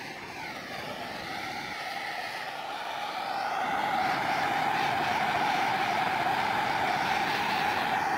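Handheld torch flame burning steadily while it heats glue-lined heat-shrink tubing over a guy-wire end, getting louder about three seconds in.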